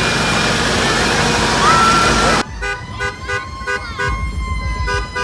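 Parade street noise of vehicles with a short horn toot. About two and a half seconds in, an abrupt cut leads to an electronic siren-like sound: steady tones with a fast repeating pulse.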